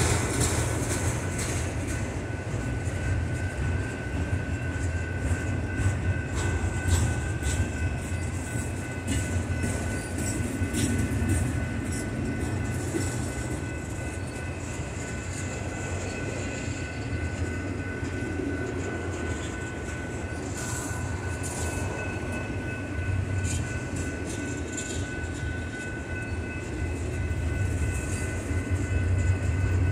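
Freight train cars rolling past: a steady rumble of steel wheels on the rails, with irregular clicks and clanks and a faint steady high-pitched ringing over it.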